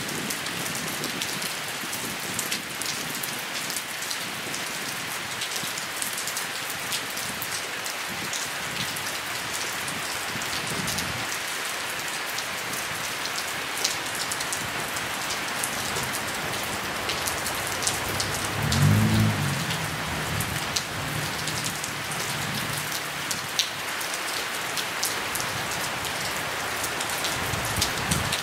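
Steady rain falling, an even hiss with close drops ticking sharply through it. A brief low rumble rises and fades about two-thirds of the way through.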